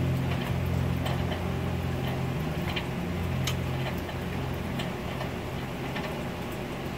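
Scattered soft clicks of eating, chewing and small mouth or food noises, a few a second, over a steady low hum that fades somewhat about halfway through.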